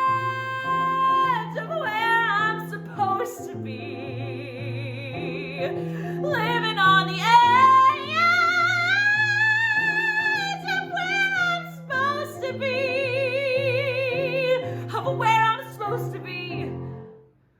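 Female voice singing a musical-theatre song, holding long, high notes with vibrato over steady accompaniment chords. It ends with a final held note and cuts off suddenly near the end.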